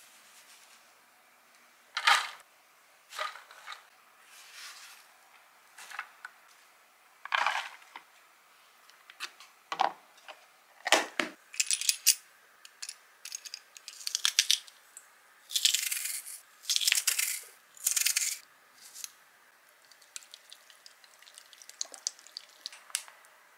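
Kitchen prep sounds: a string of separate knocks, scrapes and clinks as chopped vegetables are moved into a glass container and garlic is crushed in a stainless-steel garlic press. Near the end comes a run of quick small ticks as soy sauce is poured from a bottle.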